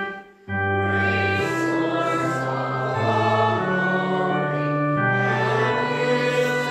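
A hymn sung by voices over organ, in slow held chords that change every second or so, with a brief break between lines right at the start.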